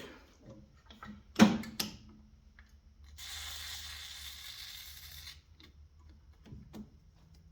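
A sharp knock about a second and a half in, then an aerosol spray lubricant hissing steadily for about two seconds as it is sprayed into a snowblower's electric starter to free its sluggish drive, with a few small handling clicks around it.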